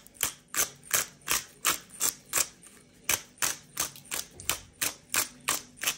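Black pepper grinder being twisted, a steady run of short dry clicks about three times a second.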